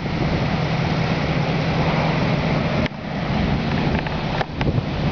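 A vehicle engine idling as a steady low hum under outdoor hiss, with an abrupt drop in level about three seconds in and a few short clicks soon after.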